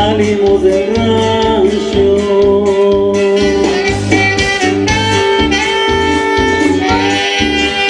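Live norteño band playing, the saxophone carrying long held melody notes over accordion, bass and drums keeping a steady beat.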